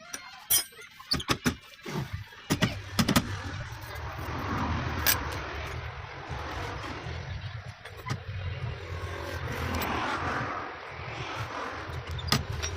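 A few sharp knocks in the first three seconds, then a motor running steadily with a low hum and a hiss that swells and fades.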